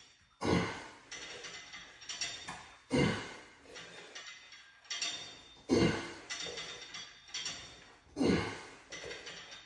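Cable machine during cable chest flies: cables running over the pulleys and the weight stacks moving with each rep. A clank comes about every two and a half seconds, four times in all, with lighter rattling and sliding between.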